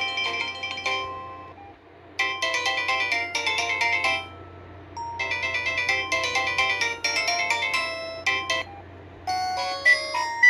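Polyphonic ringtone melodies playing from a Samsung SGH-T319 phone. One tune ends about a second in. After a short pause a bright, chiming phrase plays twice with a gap between, and a different ringtone starts near the end.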